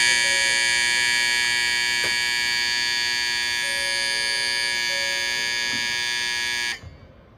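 Electronic Shinkansen platform departure bell ringing continuously, the signal that the stopped train's doors are about to close. It cuts off suddenly near the end.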